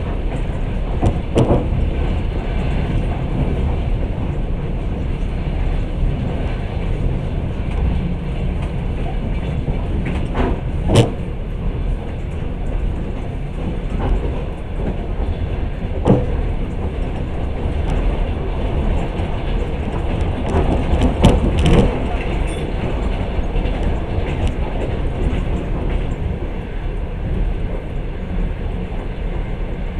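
Passenger train running along the line, heard from inside the carriage: a steady rumble of wheels on rail with occasional sharper clacks, the loudest about eleven, sixteen and twenty-one seconds in.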